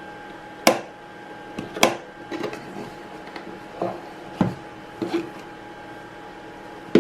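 A cardboard product box being handled: two sharp taps about a second apart, then a few softer knocks and rubs, over a faint steady hum.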